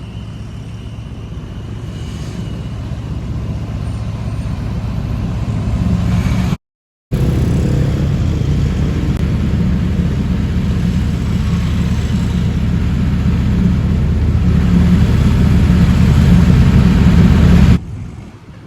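Motor vehicle engine running close by in street traffic, its low rumble growing steadily louder. The sound cuts out completely for about half a second some seven seconds in, and drops sharply near the end.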